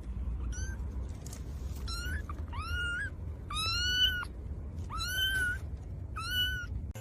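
A cat meowing repeatedly: about six separate high-pitched meows, each rising in pitch at the start, the longest about four seconds in, over a steady low hum.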